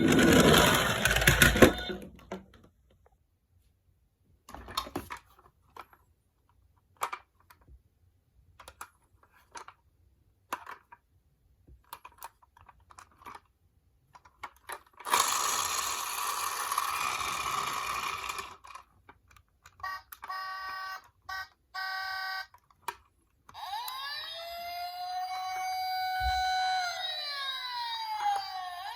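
Toy emergency vehicles' electronic sirens: a beeping pattern about twenty seconds in, then a wailing siren sweeping up and down with several overlapping glides near the end. Before that, two bursts of rattling noise from die-cast mini cars rolling down a slope, at the start and about fifteen seconds in, with scattered clicks between.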